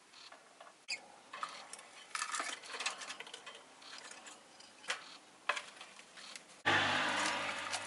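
Peach-faced lovebird moving about: a string of small beak clicks, taps and scrapes with a few brief chirps. Near the end a sudden, louder noise with a low hum sets in and slowly fades.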